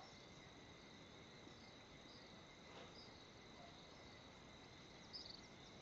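Faint, steady chirring of crickets in the evening, with a few brief high chirps near the end.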